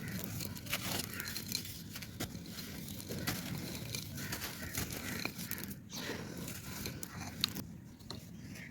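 Dry clay pot pieces crumbling, a dense, irregular crackle of many small cracks and crunches, with one sharper crack about seven and a half seconds in.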